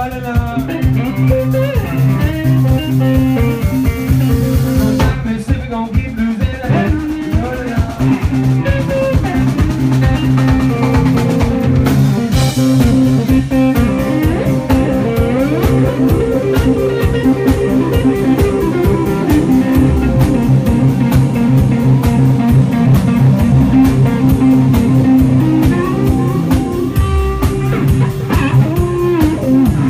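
Live blues-rock band playing an instrumental stretch: electric guitar soloing over drum kit and bass guitar, recorded from the audience on a phone.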